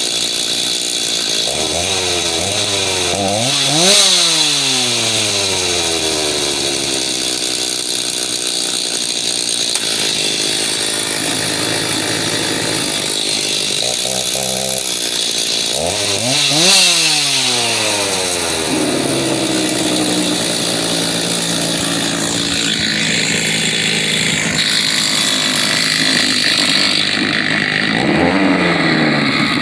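Stihl MS390 chainsaw's two-stroke engine running steadily, revved up twice, about four and seventeen seconds in, each time rising in pitch and falling back.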